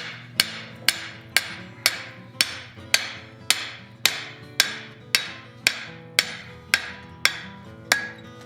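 Steady hammer blows on hot steel over an anvil, about two a second, each with a short metallic ring, as the arms of a forged cross are spread out.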